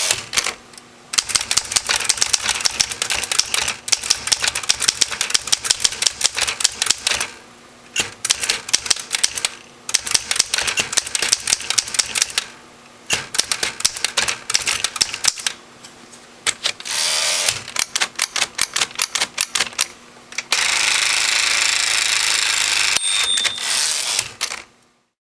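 Smith-Corona manual typewriter being typed on: quick runs of sharp key strikes broken by short pauses. Near the end comes a steady rasping mechanical noise lasting about four seconds, with a short ding partway through, before it stops abruptly.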